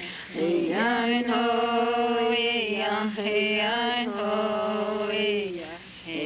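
Washoe ceremonial chant: voices singing long held phrases on a steady pitch, with a short break about half a second in and a downward slide in pitch into a brief pause near the end.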